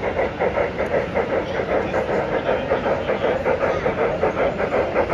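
Sound system of a large-scale model Union Pacific Big Boy steam locomotive giving a steady, even chuffing rhythm as the locomotive runs.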